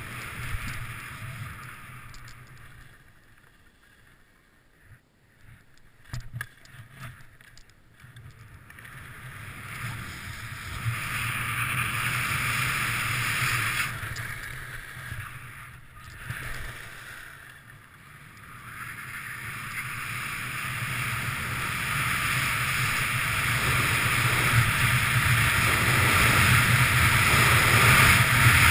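Skis sliding on groomed corduroy snow with wind rushing over the camera's microphone during a downhill run, a steady hissing rush. It drops low for several seconds early on, with a few light knocks, swells and dips again, then builds steadily louder toward the end.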